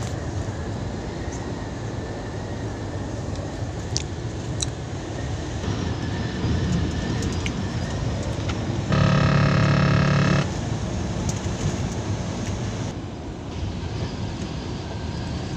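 Steady engine and road noise inside a truck cab cruising on the highway. About nine seconds in, a horn sounds once, a single steady tone held for about a second and a half.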